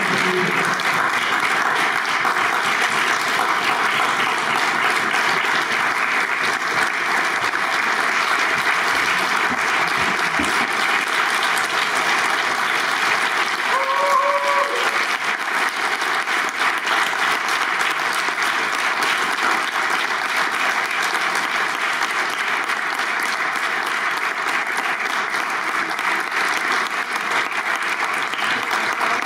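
Theatre audience applauding, steady and sustained, with one short pitched call rising out of the crowd about halfway through.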